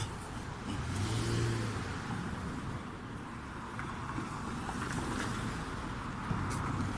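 Street traffic: cars running and passing steadily, with a low engine hum swelling about a second in.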